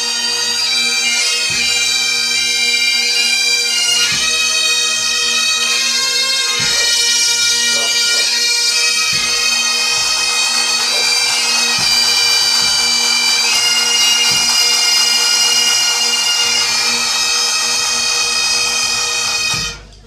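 Great Highland bagpipes of a pipe band playing a tune over steady drones, with drum beats underneath. The pipes and drums stop abruptly near the end.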